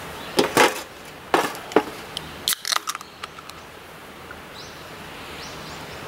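Light knocks and clicks as a gas lighter is set down on a steel camp table and an aluminium beer can is picked up off it. The handling sounds come in the first three seconds, thickest near the end of that stretch, over a steady outdoor hiss.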